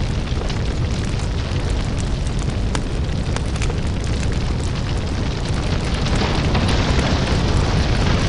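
Crackling lava fire: a steady deep rumble with scattered sharp crackles and pops over it, swelling slightly louder about six seconds in.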